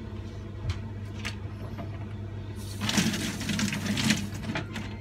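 Kitchen items being handled by hand at the sink: a couple of light clicks, then about a second and a half of rustling and scraping, over a steady low hum.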